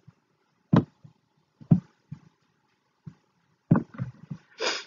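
Irregular soft taps and knocks of a stylus on a tablet screen as a word is handwritten, with a quick cluster of taps near the end.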